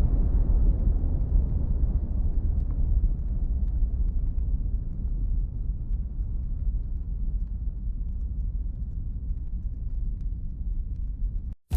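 AI-generated sound effect: a deep, steady rumble that grows duller as its higher part slowly fades away, then cuts off abruptly near the end, just before a brighter sound starts.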